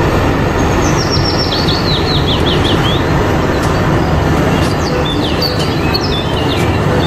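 Two crawler bulldozers running steadily as they push soil, a dense engine rumble. A bird calls over it in a quick run of descending chirps about a second in, and again with a few chirps near the end.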